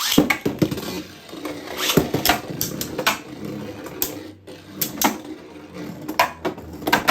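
Beyblade Burst spinning tops launched into a plastic stadium, spinning with a steady whir and clashing repeatedly, giving irregular sharp clacks and knocks throughout.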